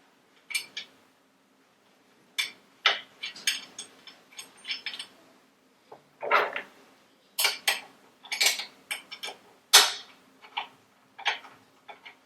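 Irregular metallic clinks, clatter and knocks of saw parts being handled and fitted while assembling a mitre saw.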